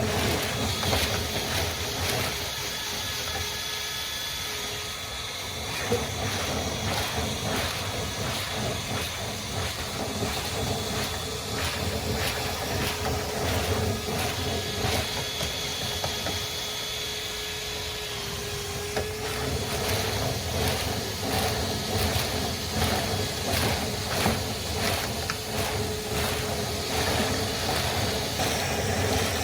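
Dryer vent cleaning equipment running steadily: a rushing hiss of air with a faint whine, and irregular rattling and clicking through the duct.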